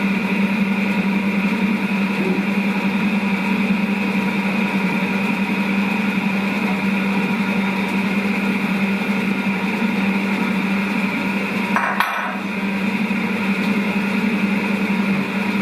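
Kenwood Cooking Chef Gourmet stand mixer running steadily on speed setting 2, its whisk beating egg whites for meringue. A short click about twelve seconds in.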